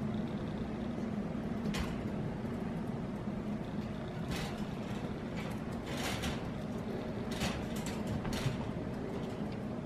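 Wire pet-pen panels clicking and rattling irregularly as a kitten climbs the mesh with its claws, a handful of sharp metallic clicks over a steady low hum.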